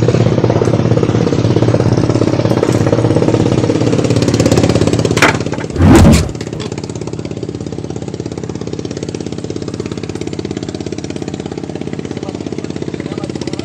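A small engine running steadily with a fast, even beat. About five to six seconds in there is a loud, brief knock or rustle, after which the engine goes on noticeably quieter.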